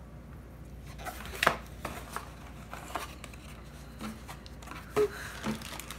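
Cardboard box and plastic wrapping being handled and pulled apart: scattered scrapes, taps and rustles, with a sharp knock about a second and a half in and another about five seconds in.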